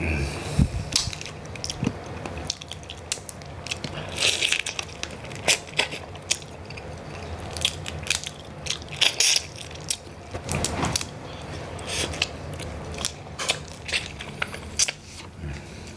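Cooked mud crab shell being cracked and pulled apart by hand and the meat chewed close to the microphone: irregular sharp crunches and cracks among wet chewing.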